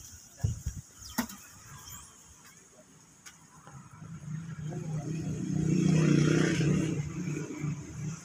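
An engine of a passing motor vehicle: a steady low hum that grows louder from about four seconds in, peaks, and fades near the end. A couple of light knocks come in the first second or so.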